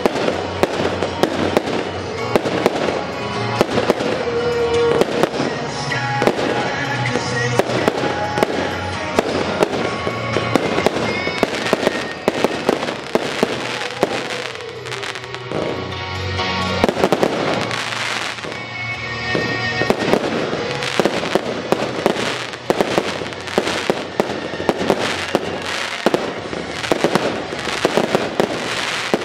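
Aerial firework shells bursting in a dense, continuous run of bangs and pops, over music.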